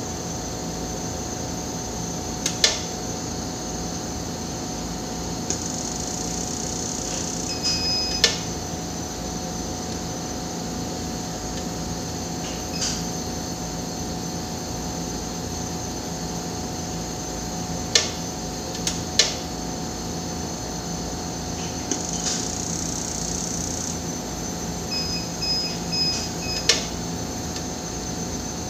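Steady hum and hiss of an atomic absorption spectrophotometer's running equipment during a stability test. Sharp clicks come now and then. There is a short high beep about eight seconds in, and a quick series of beeps near the end.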